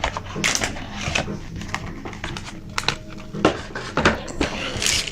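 A motherboard box and its packaging being handled and unpacked: scattered rustles and light clicks of cardboard and plastic.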